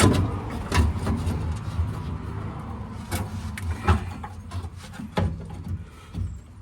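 Sharp metal clanks and knocks, about six spread irregularly, from working a crank handle and tools on a pickup's under-bed spare-tire winch, over a steady low rumble.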